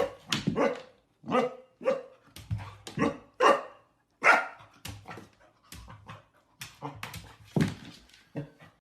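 A dog barking repeatedly, about a dozen short barks at uneven intervals.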